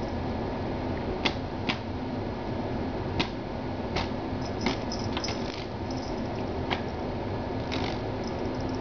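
Small electric fan running with a steady whir, while a kitten's paw taps its plastic housing in about eight sharp clicks at uneven intervals.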